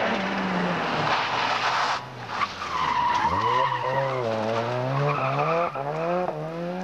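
Ford Sierra RS Cosworth rally car, with its turbocharged four-cylinder engine, sliding through a tarmac bend: first a dense rush of tyre and engine noise, then from about three seconds in the engine pulls away, its note rising and dropping back at each of several quick up-shifts.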